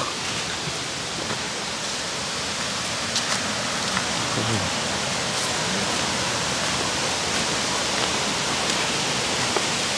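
Steady rushing water, an even noise that grows a little louder as it goes on.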